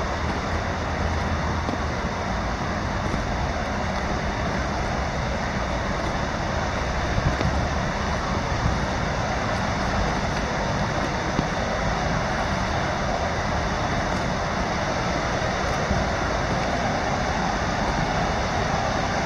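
Steady rushing of river water spilling over a low weir, with a low rumble underneath.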